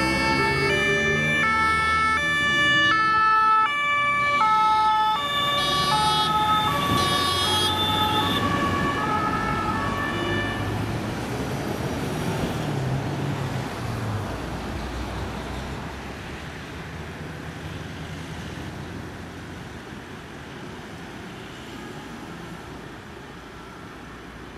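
Two-tone sirens (German Martinshorn) on a convoy of emergency trucks, several horns stepping between a high and a low note out of step with one another. They fade away about ten seconds in, leaving the hum of road traffic and truck engines.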